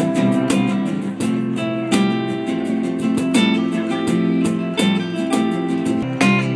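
Live acoustic band: two acoustic guitars strumming chords over an electric bass, with a cajon keeping a steady beat.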